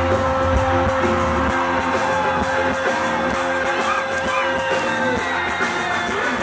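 Live concert music played through a PA, with a long held note that ends about five seconds in, and the audience cheering and singing along.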